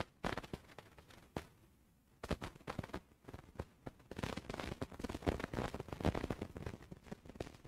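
Irregular clicks and crackles, dense and uneven, with no steady tone.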